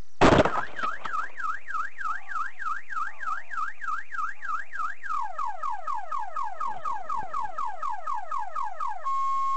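A sharp collision bang, then a car alarm set off by the impact. It warbles rapidly up and down, switches about halfway to a repeated falling whoop about three times a second, and turns to a steady tone near the end.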